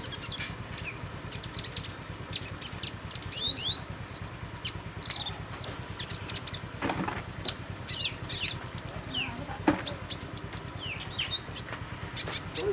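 Male kolibri ninja sunbird chirping: a rapid series of thin, high chirps and short rising and falling twitters, over a steady low hum.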